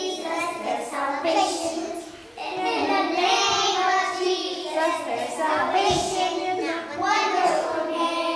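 A group of preschool children singing a song together in unison, with a brief break for breath about two seconds in.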